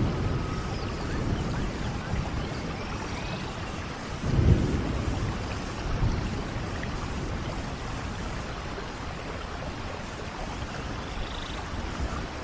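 Rainforest thunderstorm: steady heavy rain, with thunder rumbling loudest about four seconds in and a lighter rumble soon after.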